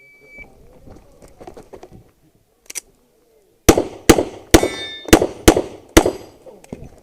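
Shot timer's start beep, one short high tone, then a few seconds later six handgun shots fired in quick succession, about half a second apart.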